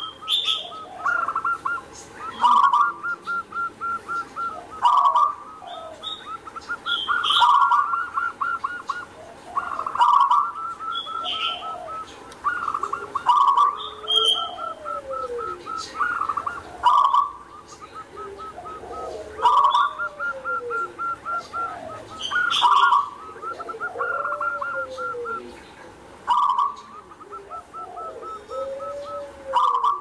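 Zebra dove (perkutut) cooing over and over, about every two to three seconds: each call opens with a loud note and runs on in a quick string of short rolling notes, with lower rising-and-falling call notes woven between.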